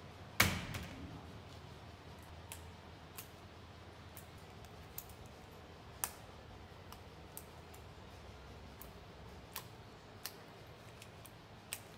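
Scissors snipping off the staples that stick out around the insole of a lasted high-heel shoe, a string of scattered sharp metal clicks. One much louder knock comes about half a second in.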